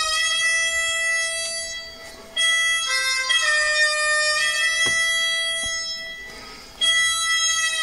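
Harmonica playing a slow Western-style tune in long held notes and chords. It breaks off briefly twice between phrases, about two seconds in and again near seven seconds.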